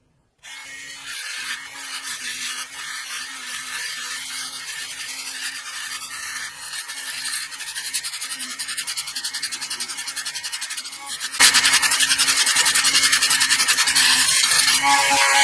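Small high-speed rotary tool running with an abrasive bit, grinding against a part, with a steady high motor hum. It gets noticeably louder for the last few seconds as the bit bites harder.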